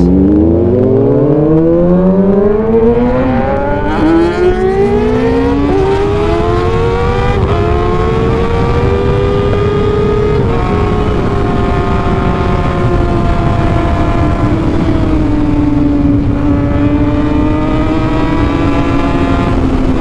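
Kawasaki ZX-6R 636's inline-four engine with an Arrow exhaust revving up, its pitch climbing in a few steps over the first several seconds, then running at a high, steady note that slowly falls.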